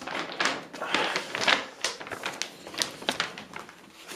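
Crinkling and rustling of a folded glossy paper poster being unfolded, in irregular crackles.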